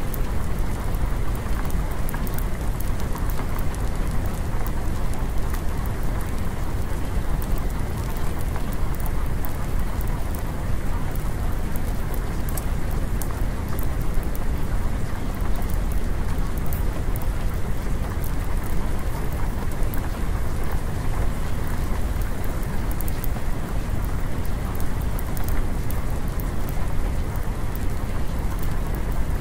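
Steady, heavy rain with many small drop taps over a deep, constant rumble.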